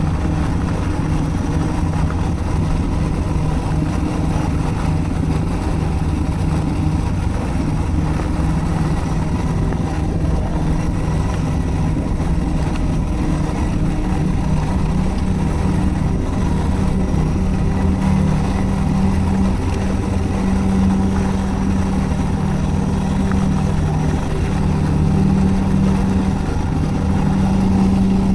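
Suzuki DR650's single-cylinder engine running steadily while riding. The engine note climbs slightly and grows a little stronger in the second half.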